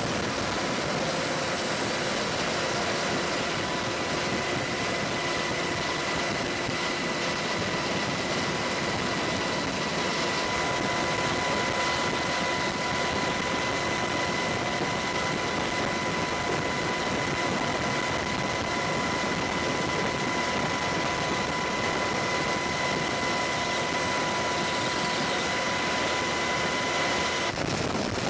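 AH-64 Apache helicopter's twin turboshaft engines running steadily: a constant rushing noise with a thin, high, steady whine through it. The sound changes abruptly near the end.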